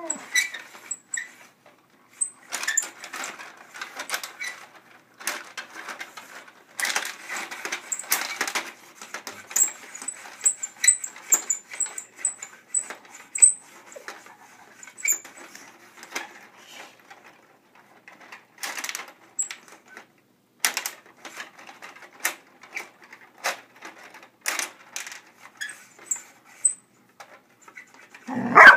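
Irregular clicks, taps and rattles of a plastic tabletop rod hockey game as a golden retriever noses at its puck and players.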